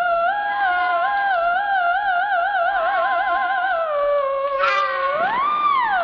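Theremin playing a single eerie, wavering tone. It moves between held notes with a slow vibrato, drops lower about four seconds in, then slides up and back down near the end.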